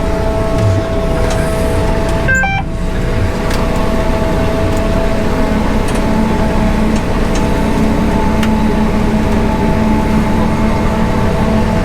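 Heavy farm machine's engine running steadily under load, with a brief high electronic chirp about two and a half seconds in.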